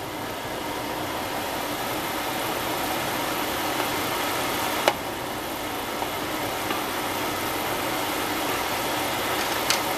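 Broth with beef tips at a hard rolling boil in a pan: a steady bubbling rush, with one sharp click about halfway through.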